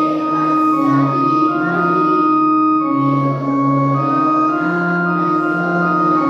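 Keyboard in an organ voice playing a slow tune over held chords, with a bass line moving under it.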